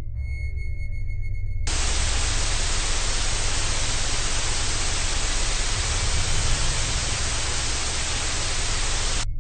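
Electronic soundtrack static: a loud, even white-noise hiss switches on abruptly about two seconds in and cuts off just as abruptly near the end, over a low sustained drone.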